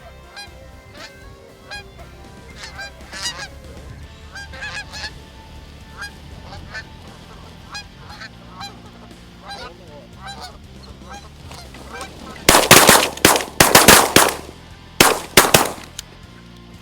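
A flock of Canada geese honking, with many short repeated calls. About twelve seconds in comes a rapid volley of roughly eight loud shotgun blasts within about three seconds: the hunters opening fire as the geese come in to land.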